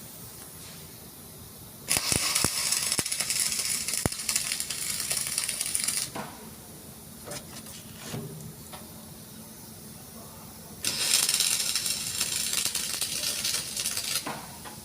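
A metal-repair tool working on a steel excavator bucket, heard as two bursts of loud, crackling hiss. The first lasts about four seconds and starts about two seconds in; the second lasts about three seconds and comes near the end.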